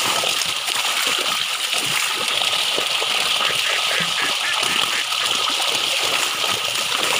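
A crowd of big fish thrashing and leaping in shallow water inside a seine net that has been drawn tight, making a continuous heavy splashing.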